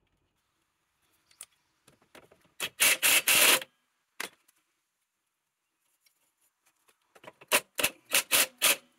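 Cordless impact wrench hammering in short bursts on the clutch nut of a Tomos A3 moped: one longer burst about three seconds in, then a run of quick bursts near the end.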